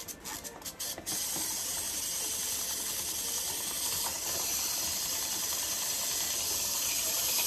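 Wind-up clockwork hamster toys: a few ratcheting clicks as they are wound, then about a second in their clockwork motors start running with a steady whirr that grows slightly louder.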